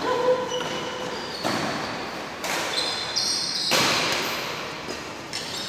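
Badminton rally in a large echoing hall: several sharp racket strikes on the shuttlecock, roughly a second apart, with shoes squeaking on the court floor.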